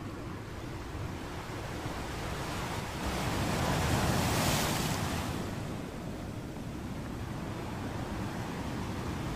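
Surf washing onto a beach, a steady rushing noise with one wave swelling louder about three to five seconds in and then falling away.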